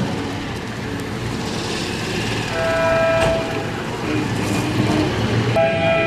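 A vehicle horn sounding in two blasts of steady pitch: the first about a second long, the second starting near the end.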